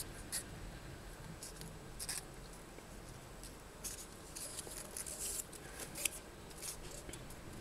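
Folded paper of an origami macaw parrot rustling and crinkling quietly in the fingers as it is held and turned: a scatter of short, crisp rustles at irregular moments.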